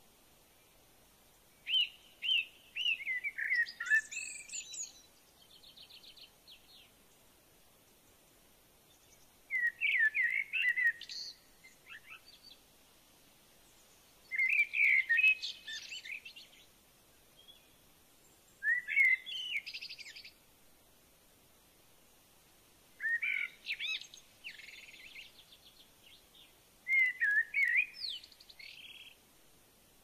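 Warbling white-eye singing: six short phrases of quick, jumbled twittering notes, each lasting a couple of seconds, with pauses of a few seconds between them.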